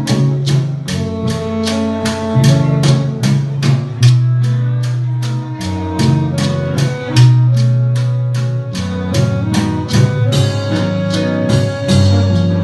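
Live Puerto Rican band playing an instrumental passage: a steady beat of percussion strikes, about three a second, over sustained bass notes and plucked strings.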